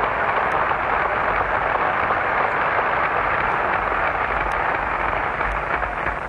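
Large crowd applauding and cheering: a steady, dense wash of noise that eases slightly near the end.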